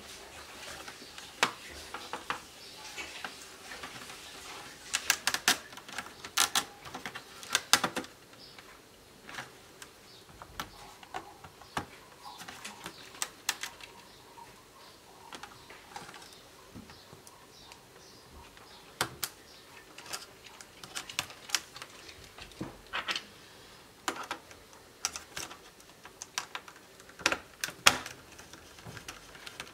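Irregular clicks, taps and snaps of a screwdriver and fingers on the plastic case and connectors of a Toshiba Satellite C660D laptop being taken apart. Louder bunches of snaps come about five to eight seconds in and again near the end.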